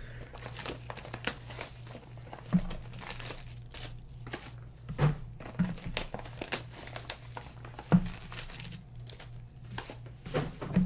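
Plastic wrapping crinkling and rustling as trading-card packs are opened and handled, with a few sharp knocks, the loudest about eight seconds in, over a steady low hum.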